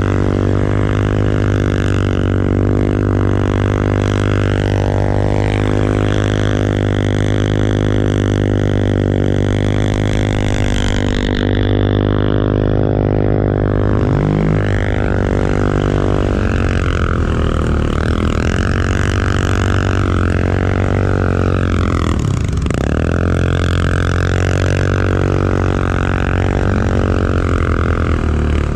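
ATV engine running with a steady drone, its pitch dipping and coming back up briefly about halfway through and again about three-quarters through.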